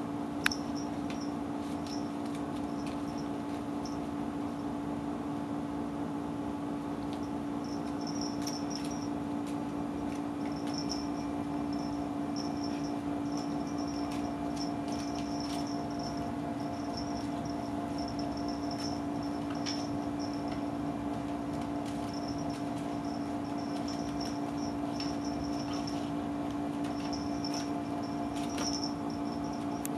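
Steady low hum throughout, with short high-pitched blips coming and going and scattered faint ticks and rustles as a kitten bats a crumpled paper ball about on carpet.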